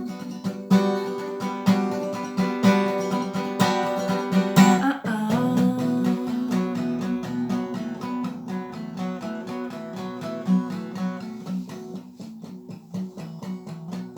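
Acoustic guitar playing an instrumental interlude of the song. It is strummed firmly for the first five seconds or so, then changes chord and settles into a lighter, softer rhythmic pattern that eases off toward the end.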